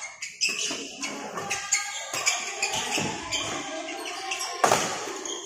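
Badminton doubles rally: rackets repeatedly striking the shuttlecock and shoes squeaking on the court floor. There is a loud hard hit about four and a half seconds in.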